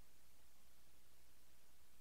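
Near silence: a faint, steady hiss with a low hum underneath, the recording's noise floor.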